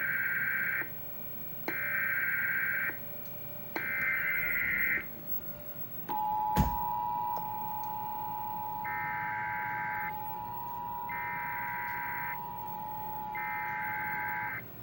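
Emergency Alert System tones for a tornado warning. First come three short bursts of warbling SAME data header, then the steady two-tone EAS attention signal starts about six seconds in, with a sharp pop just after it starts from the audio output being run at maximum volume. Three more header bursts play over the attention tone.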